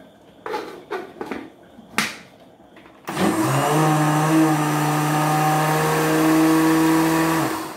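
A few knocks as the lid goes onto an Arno countertop blender, then its motor starts about three seconds in and runs at a steady pitch, blending a thick batter, before stopping just before the end.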